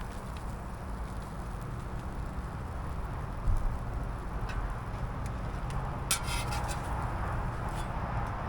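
Steady low outdoor rumble, with a soft knock about three and a half seconds in and a brief cluster of clicks or a scrape around six seconds in.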